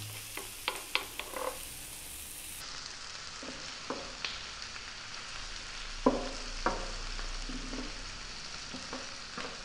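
Chopped onion, celery and garlic sizzling gently in oil in a frying pan while a wooden spoon stirs them, with irregular scrapes and taps of the spoon against the pan.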